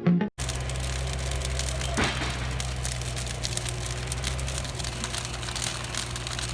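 Burning wood crackling and popping, with one louder crack about two seconds in, over the steady low running of a backhoe's engine idling.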